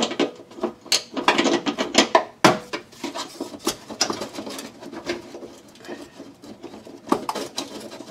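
Hand tools working the Jeep's fender bolts: a quick run of metallic clicks and clinks in the first couple of seconds, then scattered knocks and rubbing.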